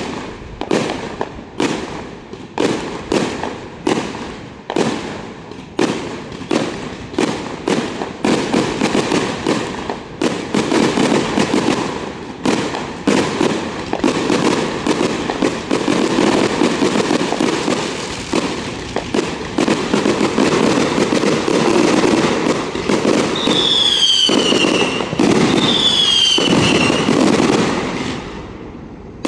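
Fireworks display: sharp bangs about two a second at first, thickening into a near-continuous run of booms and crackling. About two-thirds of the way through come two whistling shells, each a falling whistle.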